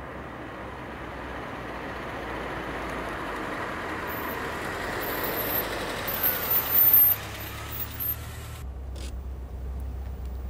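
A car approaching and growing louder, with brief high squeaks near its loudest point. About eight and a half seconds in, the sound drops suddenly to a low steady engine hum, as heard from inside a car.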